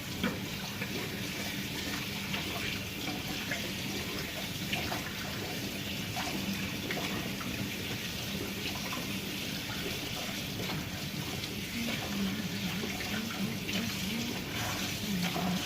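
Tap running steadily into a sink while hands are rinsed under it.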